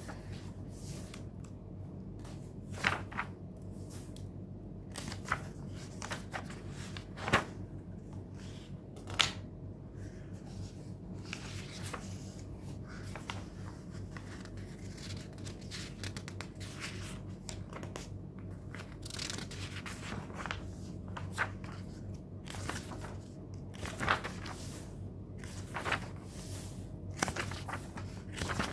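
Book pages being turned and rustled now and then, with a dozen or so sharper paper clicks, over a steady low hum.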